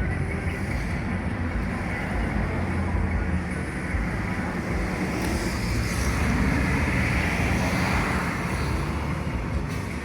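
Sports car running on the road, heard from inside the cabin: a steady low engine drone under tyre and road noise, growing a little louder about six seconds in, then easing.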